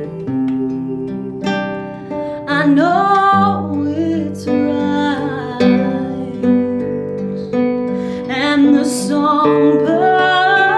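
Acoustic guitar picking a slow ballad accompaniment, joined about two and a half seconds in by a gliding, wavering violin melody.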